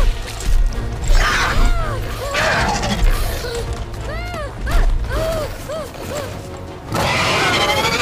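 Monster-movie soundtrack: a dramatic score with deep low booms, bursts of cracking and crunching like large eggshells breaking, and a string of short squeals that rise and fall in pitch.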